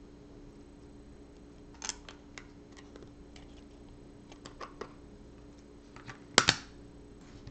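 Plastic LEGO pieces clicking and tapping as they are picked up and pressed together, scattered light clicks through the middle, with a pair of sharper snaps about six and a half seconds in. A faint steady hum lies underneath.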